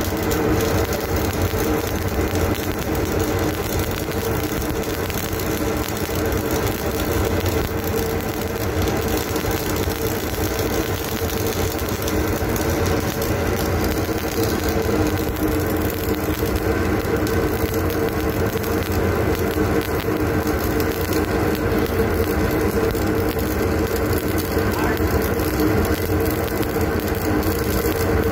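Stick-welding arc crackling steadily and without a break as a bead is laid, over a steady machine hum.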